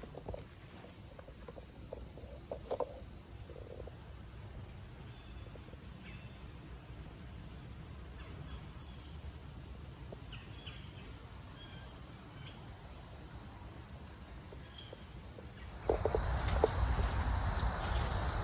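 A steady, high-pitched chorus of crickets or other singing insects trilling without a break. About sixteen seconds in it gets suddenly louder, and a broad rushing noise joins it.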